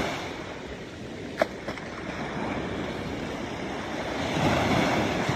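Baltic Sea waves washing up on the beach, rising to a surge about four to five seconds in. A single sharp click sounds about a second and a half in.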